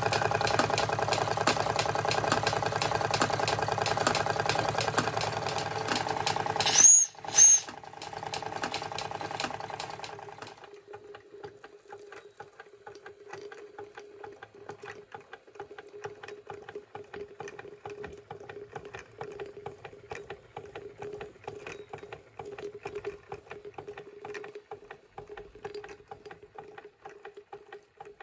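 Märklin 16051 live-steam compound model engine running. For about the first ten seconds there is a loud steady running noise with a hum, broken by two short loud blasts about seven seconds in. Then it drops sharply to a much quieter, fast, light ticking of the running engine over a faint steady tone.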